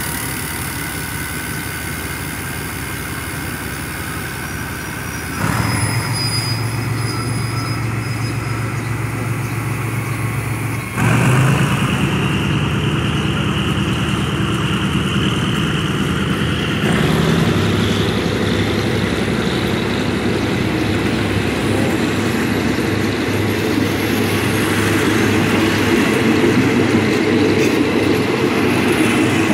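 Diesel-hauled passenger train pulling out and rolling past, its coaches rumbling. The low engine note steps up abruptly three times, at about a fifth, a third and three fifths of the way through, as the train gathers speed.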